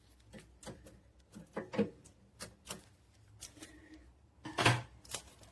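Irregular light clicks and taps of plastic parts and packaging being handled during unpacking, with a louder knock about four and a half seconds in.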